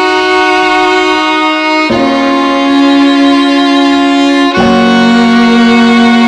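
Background music of long held notes, each carried for two to three seconds before moving to the next.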